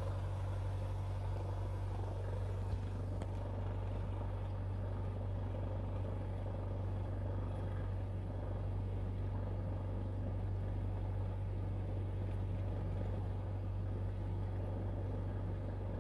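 Cessna 172's engine running steadily at taxi power, heard from inside the cockpit as a constant low hum.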